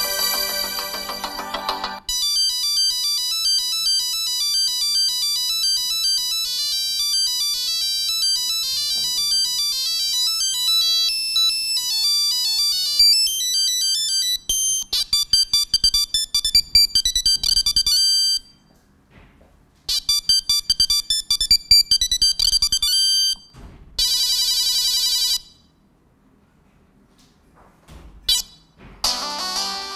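A series of Google Pixel 3a XL ringtones playing one after another. Each is a short electronic melody of high notes, and there are two brief silent pauses between some of them.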